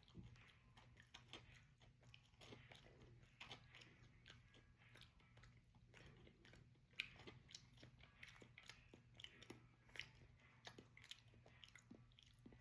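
A person chewing crunchy Cheez-It crackers, with many faint, irregular crunches.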